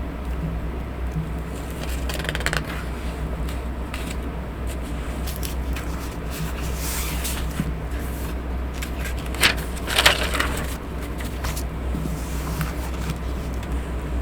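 A fan's steady low hum with intermittent rustling and scratching of paper being handled, the loudest pair of rustles about nine and a half and ten seconds in.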